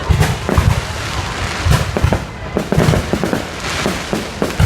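Fireworks display going off: a rapid, irregular run of sharp bangs and deeper booms, one after another, with the crackle of bursting shells between them.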